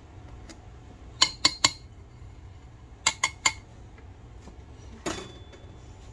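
A utensil knocking inside a blender jar as thick frozen-fruit smoothie is stirred by hand to free fruit stuck at the blades. Two quick sets of three sharp knocks, then a short scraping rush near the end.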